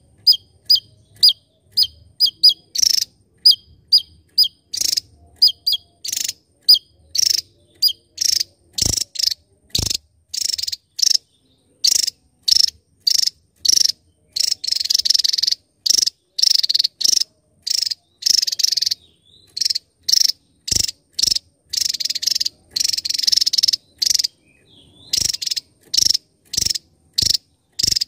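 Javan tesia singing a rapid-fire run of short, sharp, high-pitched notes, about two a second. The notes start as clean chips that drop at the end and turn harsher and buzzier from a few seconds in.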